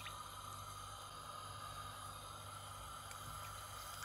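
Faint steady background hiss with a low hum, and a few faint ticks near the end.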